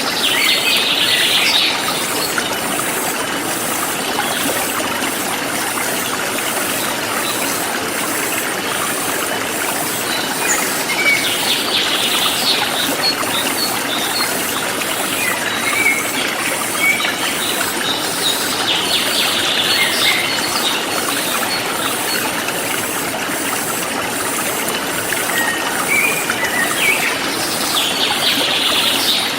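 Forest stream flowing steadily, with a bird singing a short phrase four times, about every eight seconds, and a high, regular pulsing of insects.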